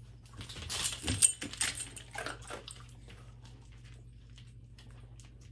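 A dog vocalizing in a short burst of about two seconds, loudest a little over a second in.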